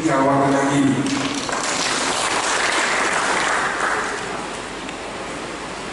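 An audience applauding, swelling about a second in and dying down about four seconds in, just after a man's voice at a microphone finishes a phrase.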